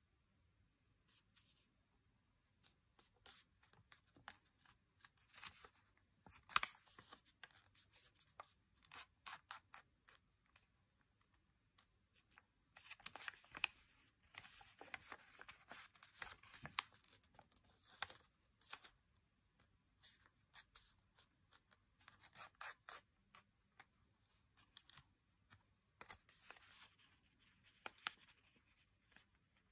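Faint crackling and rustling of a small square of thin origami paper as fingers crease, fold and open it out. The sound comes as scattered short crackles, with a longer stretch of continuous rustling around the middle.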